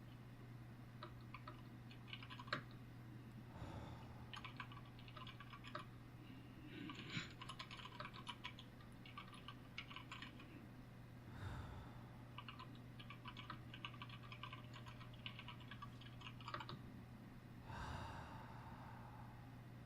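Computer keyboard typing in short runs of quick keystrokes with brief pauses between them, and a soft breath in three of the pauses.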